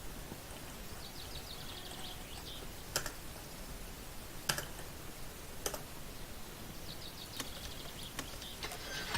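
A car that won't start clicking rapidly when the key is turned, in two bursts of fast ticks, with several single sharp clicks between them.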